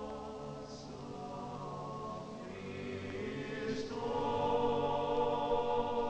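Choral music in the soundtrack: voices singing long held chords that shift a few times, swelling louder from about four seconds in.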